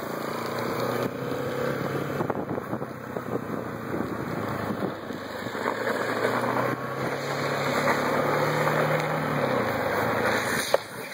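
Drift trike rolling and sliding down an asphalt hill: a steady rushing of hard plastic wheels on the road, mixed with wind on the microphone. A low hum climbs in pitch for a couple of seconds past the middle, and a sharp knock comes near the end.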